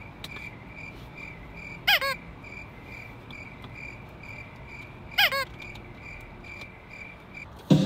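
An evenly paced high-pitched beeping or chirping, a little over two a second, that stops suddenly near the end. Twice, about two seconds in and again about five seconds in, a louder short sound slides down in pitch over it.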